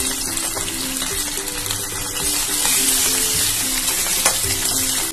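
Pabda fish frying in hot mustard oil in a pan: a steady sizzle with scattered crackles. Background music with short repeating notes plays underneath.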